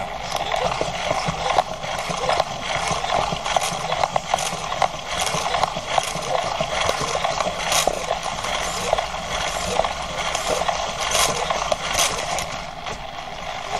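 Hexapod robot's hobby servos whirring and grinding as it walks, their gears worn nearly smooth so they creak and grate, with the legs tapping and clicking irregularly on the floor.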